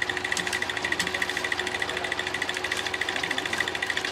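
Fishing reel clicking rapidly and evenly as line is cranked in against a hooked salmon, over the steady hum of the boat's engine.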